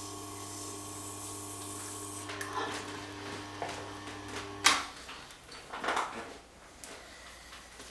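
A Tormek sharpening machine's motor running with a steady hum, a high hiss dropping away about two seconds in; a sharp click near the middle as the machine is switched off, and the hum stops at once. Then the rustle of a cloth wiping the knife blade.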